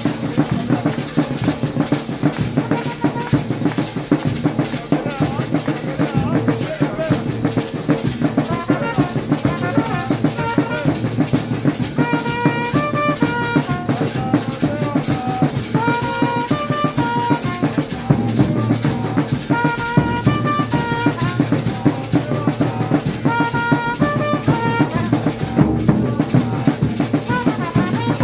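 Several large double-headed drums played together in a steady, driving rhythm. About eight seconds in a horn joins with a short melody that repeats every few seconds over the drumming.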